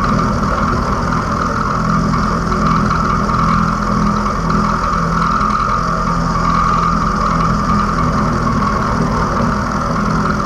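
Milling machine running with its four-flute cutter slotting a mild steel block under hand table feed: a steady mechanical drone with a steady high tone over it, unbroken throughout.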